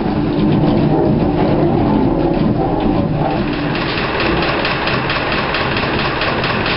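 Old mill machinery running steadily, a dense mechanical rumble, with a fast regular clatter that comes in about halfway through.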